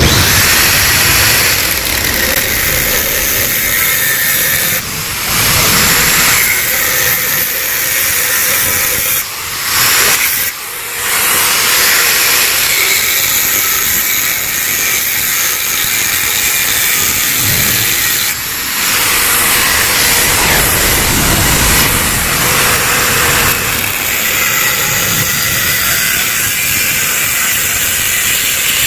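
Power tool working the metal of a Yamaha RX King's exhaust muffler as it is opened up: a loud, steady hissing grind that stops briefly a few times.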